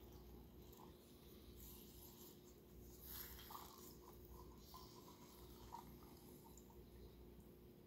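Very faint squelching and rubbing of a handheld two-handled citrus squeezer pressing a lemon half, a little louder about three seconds in and again near six seconds, over a low steady room hum.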